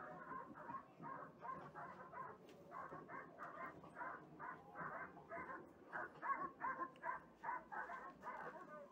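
Dogs barking rapidly and without pause, about three to four barks a second. It is a recording played back as part of an exhibit.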